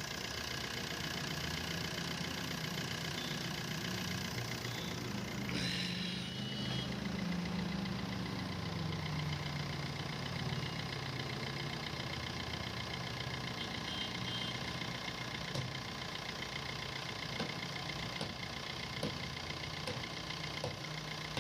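Maruti Suzuki Swift VDI's 1.3-litre four-cylinder diesel engine idling steadily, with a brief swell about six seconds in. The chirping from the AC compressor's dry bearing is gone now that the bearing and the belt have been replaced.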